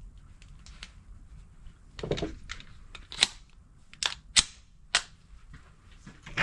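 Pistol shots: a duller clack about two seconds in, then four sharp cracks in quick, uneven succession.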